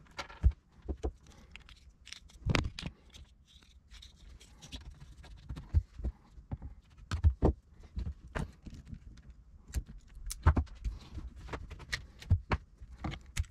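Irregular clicks, taps and rustles of electrical wires and corrugated plastic wire loom being handled and pushed into place, with a few louder knocks.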